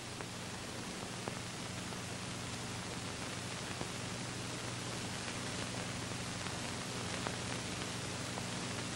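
Steady hiss of an old soundtrack with a low hum under it and a few faint scattered ticks; no distinct action sound stands out.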